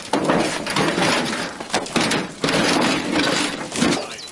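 Old roofing being torn off the roof deck: a continuous run of wood scraping, cracking and clattering as shingles are pried up.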